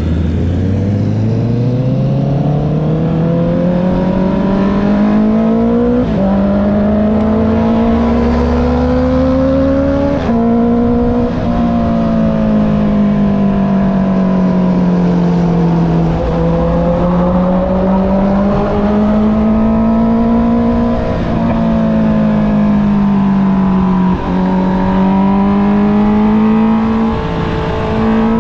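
Honda CB650R inline-four engine through an Akrapovic exhaust while riding: it accelerates from low revs with the pitch climbing, shifting up about six and ten seconds in. It then runs at middling revs, the pitch rising and falling as the throttle opens and closes, with brief dips at further gear changes.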